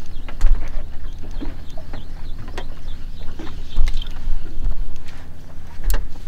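Boat noise on the water: a steady low drone of the boat's engine, with irregular knocks and heavy thumps, the loudest about half a second, four seconds and six seconds in.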